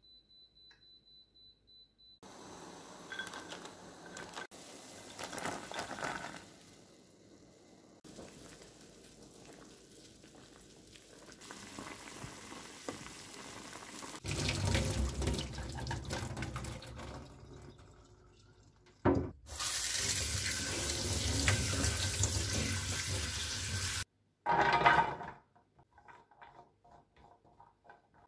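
An induction cooktop's touch panel beeps as it is set. Then walnuts bubble in boiling water in a frying pan and are stirred with a wooden spatula. The loudest part is several seconds of water rushing hard from a sink tap, about two-thirds of the way in.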